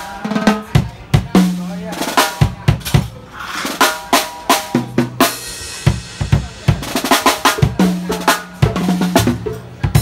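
Drum kit played live in a busy pattern of rapid hits: snare strokes, pitched tom hits and kick drum, with a cymbal crash ringing about five seconds in.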